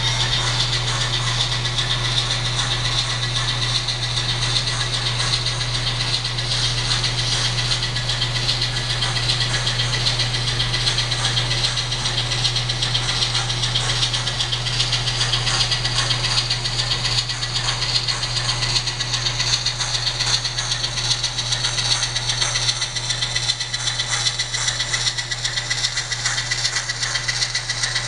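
Diesel switcher engine sound from the factory DCC sound decoder of an N-scale Atlas ALCO S-2, played through the model's small speaker, running steadily with a rattly, hissy tone.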